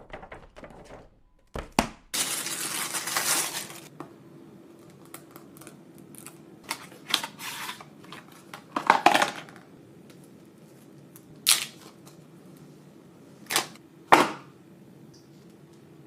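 Unboxing handling of an iPhone 12 Pro Max's box: a long tearing rustle about two seconds in, which fits pulling the paper seal strips, then a few short scrapes and clicks of cardboard and the phone being handled, over a faint steady hum.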